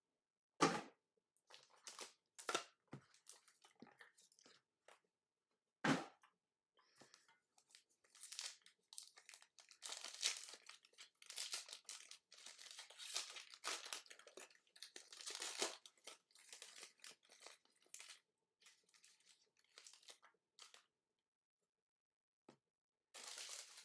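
Plastic wrapping being torn off a sealed trading-card box and crinkled, with a long stretch of crackling in the middle. Two sharp knocks of the box being handled come near the start and about six seconds in.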